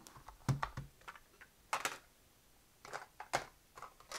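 About half a dozen short clicks and knocks as a 1971 Sony TC-40 handheld cassette recorder is handled and set down on a table.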